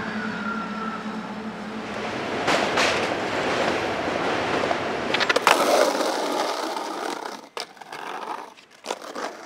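Skateboard wheels rolling over pavement in a steady rough rumble, clacking a few times over seams. Near the end the rolling drops away and a few separate sharp clacks of the board on a concrete ledge follow.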